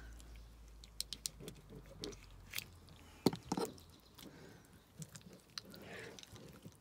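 Raw chicken being cut up by hand with a knife. Scattered wet clicks and crackles come as the wing is worked and cut at its joint, the loudest two cracks a little over three seconds in.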